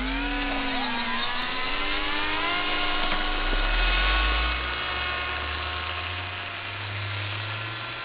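Electric ducted fan of a BD-5 model jet spooling up to takeoff power, a whine that rises in pitch over the first two to three seconds and then holds steady through the takeoff run and climb-out, with a low hum beneath it.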